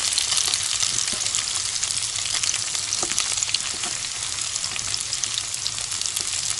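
Sliced potatoes frying hard in hot fat in a skillet, a steady dense sizzle full of fine crackles. A wooden spatula turning them scrapes and taps the pan now and then.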